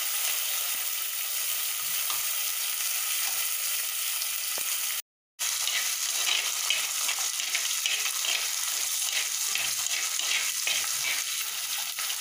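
Garlic cloves and curry leaves sizzling in hot oil in a clay pot, over popped mustard and fenugreek seeds. It cuts out briefly about five seconds in, then returns with more crackling and spitting.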